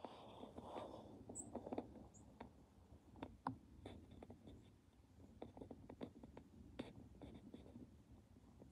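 Quiet, with faint irregular clicks and soft scratchy rustling, a little stronger in the first couple of seconds.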